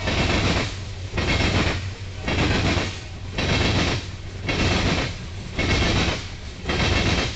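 Coal train cars rolling past on the rails, a steady rumble with a loud swell about once a second as each car's wheels go by.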